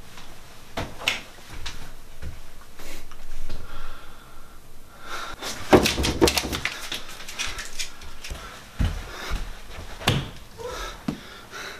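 Household handling noises in a small room. A door is handled with a few clicks and knocks, then a sticky note crackles as it is peeled and handled in the middle. Near the end come a few low thumps, like footsteps.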